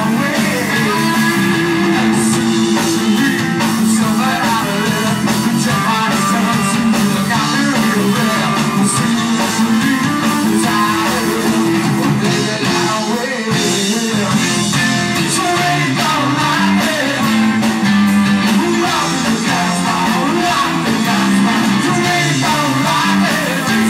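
Live rock band playing loudly: electric guitars and a drum kit, with a singer.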